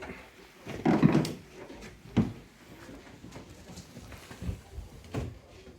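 A few dull knocks and thumps, the loudest cluster about a second in, a sharp one a little after two seconds and weaker ones near the end.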